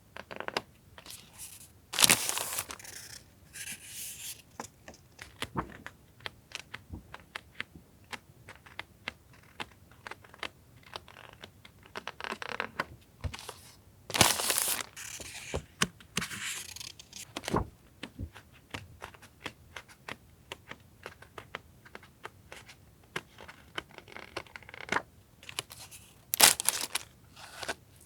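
Paper and plastic-wrapped stationery being handled: rustling and crinkling, with a few louder tearing-like bursts among many small taps and clicks.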